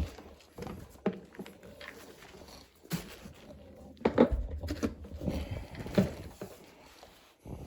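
Scattered knocks, clunks and rustles of someone handling a rotary carpet-cleaning machine and its cleaning pad to inspect the pad, with the machine switched off.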